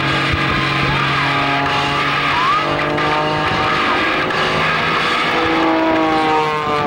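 Aerobatic plane's propeller engine running hard through a climb and dive, its pitch sliding slowly, with airshow loudspeaker music underneath.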